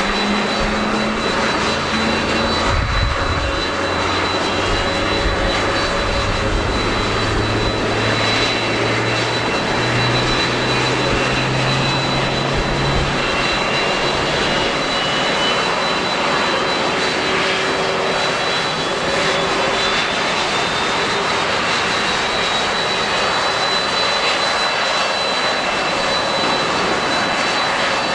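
Jet airliner engines running, a loud steady rush with a high whine on top. Low engine hum fades out about halfway through.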